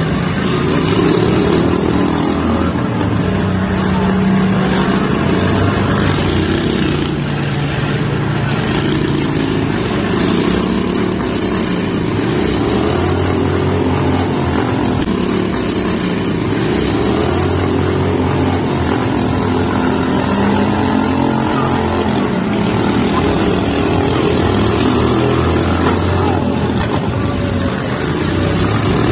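Several small garden tractor engines running together and revving, their pitch rising and falling as the machines drive and push.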